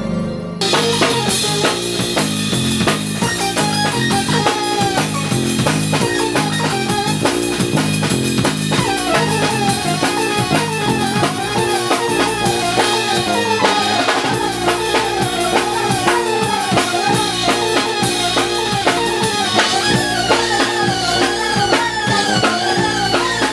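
Instrumental band music with a drum kit playing a busy beat, a melodic line on top and a repeating bass pattern; it starts suddenly about half a second in.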